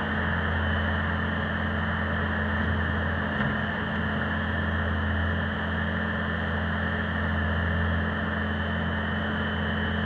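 Bobcat T595 compact track loader's Kubota 3.3 L diesel engine running at a steady speed, a constant low hum with no revving.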